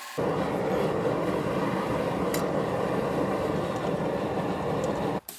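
Steady rushing roar of a gas burner flame heating steel, cut off suddenly about five seconds in.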